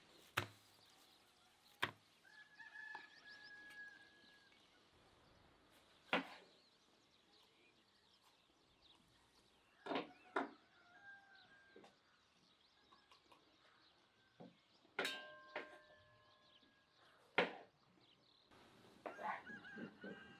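Sharp knocks of a knife on a wooden cutting board every few seconds as meat and then bell peppers are cut. In the background, chickens cluck and a rooster crows, most clearly about three-quarters of the way through.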